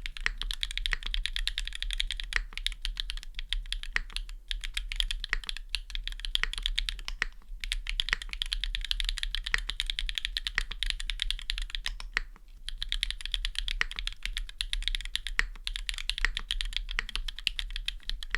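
Continuous fast typing on a Machina Cloudnine mechanical keyboard with Gateron Deepping switches, an aluminium plate and GMK keycaps. It is a dense run of crisp keystroke clacks, broken by a few short pauses.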